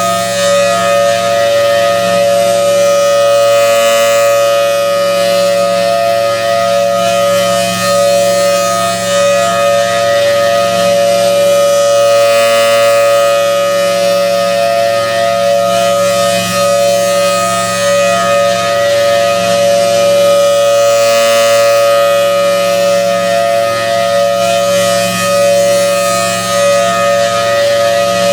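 Federal Signal Thunderbolt 1000T blower-driven outdoor warning siren sounding its steady full alert: a loud, unbroken two-tone chord that swells and fades about every eight seconds as the siren head rotates.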